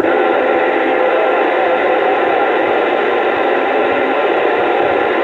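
Steady static hiss from a radio receiver's speaker, with no voice on the channel.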